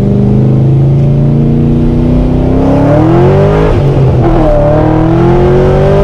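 C6 Corvette's V8 heard from inside the cabin, pulling hard in gear with the pitch climbing as the revs build. About four seconds in the note drops sharply as the driver upshifts the six-speed manual, then it climbs again under acceleration.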